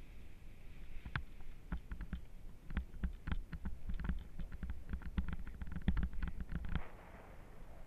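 A paraglider pilot's running footsteps on dry grass during the launch run, heard from a helmet-mounted camera as quick, uneven thuds and knocks. They stop suddenly about seven seconds in.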